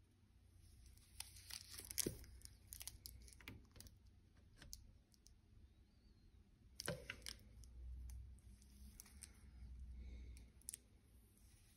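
Faint handling noise from gloved hands turning a wristwatch with a rubber strap: scattered small clicks and rustles, the sharpest about two seconds in and another about seven seconds in.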